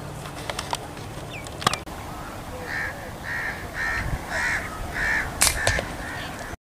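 A bird calling in a quick series of about six short calls, roughly two a second, with a few sharp clicks, two of them louder than the calls.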